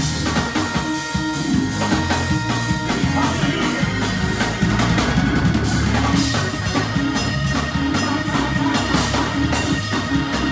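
Church band playing an upbeat praise groove on drum kit and bass, with a congregation clapping along.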